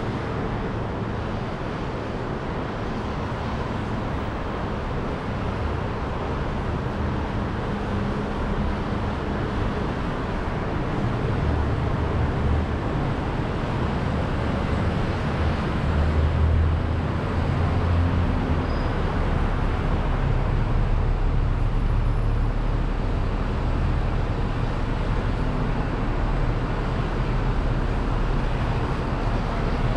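City street traffic: a steady wash of passing vehicles, with a low rumble that builds about a third of the way in and is loudest around the middle, then a steady low hum that carries on.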